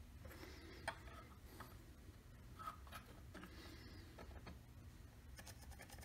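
Near silence with faint small clicks and light rubbing as a pencil marks a line on a brass pen tube held against digital calipers. One slightly sharper click comes about a second in.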